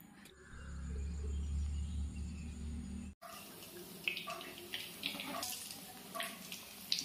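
A low steady rumble for about three seconds. After a short break, chicken keema chops fry in hot oil in a kadai: a steady sizzle with many sharp pops and crackles.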